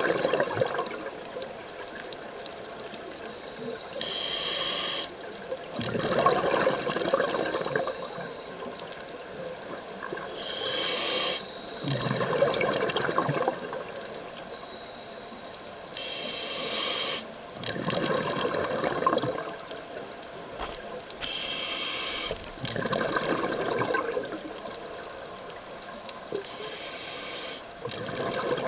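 Scuba breathing through a regulator underwater, five breaths about five to six seconds apart. Each breath is a short high hiss of inhaled air through the demand valve, followed by a longer, lower rush of exhaled bubbles.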